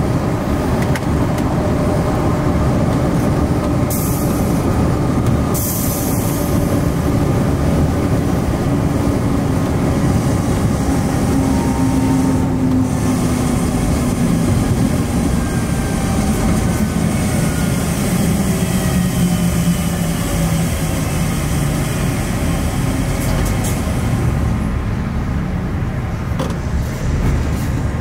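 Heavy truck on the move: diesel engine running under tyre and road noise, its pitch slowly falling through the middle as the truck slows. Two short hisses about four and six seconds in.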